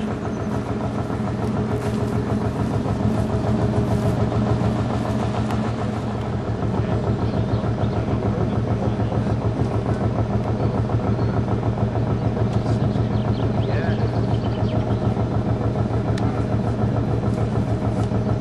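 An engine running steadily at idle: a constant low hum with a fast, even pulse. A few short bird chirps come over it.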